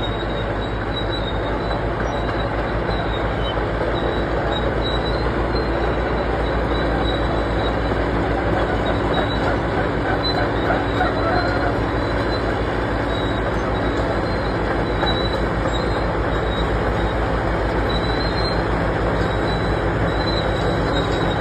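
Bulldozer's diesel engine running steadily with a low pulsing rumble as it tows freight cars along the track, while a thin high-pitched wheel squeal from the cars comes and goes.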